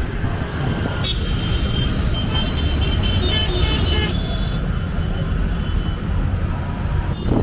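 Steady road-traffic rumble, with a cluster of short vehicle horn toots from about one to four seconds in.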